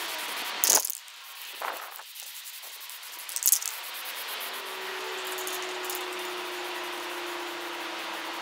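Aerosol spray-paint can giving a few short hissing bursts of spray, the two loudest about a second in and about three and a half seconds in. A low steady hum comes in about halfway.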